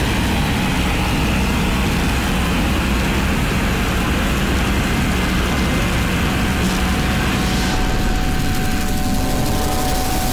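Harsh blackened-noise and power-electronics music: a loud, dense wall of noise over a steady low droning rumble, with no beat or clear melody.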